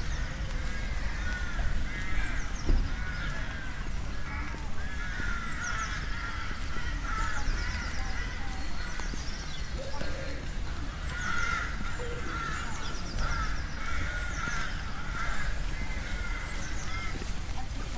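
A flock of crow-family birds cawing over and over, many calls overlapping, with fainter high-pitched songbird chirps mixed in.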